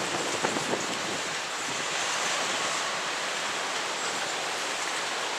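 Raw sewage and floodwater welling up out of a burst drain, a steady rushing hiss of water.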